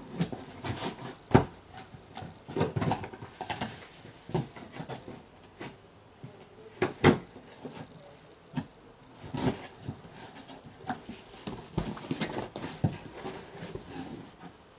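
Cardboard shipping box being torn open by hand: cardboard rustling and scraping as the tape comes off and the flaps are pulled back, with scattered sharp knocks, the loudest about seven seconds in.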